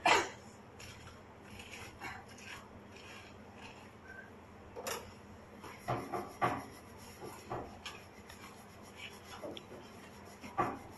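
Hands pulling the guts out of a large swordfish's opened belly: soft wet rubbing and tearing of flesh against the steel counter, with scattered short knocks.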